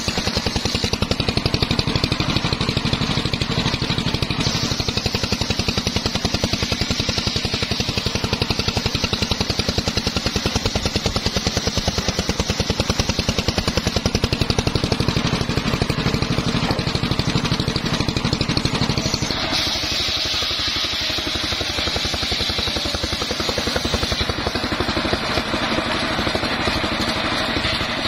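Engine-driven homemade circular saw bench ripping a wooden plank lengthwise: the engine runs with a fast, even beat under the rasp of the blade in the wood. About two-thirds of the way through the sound changes, with less low rumble and a stronger high hiss.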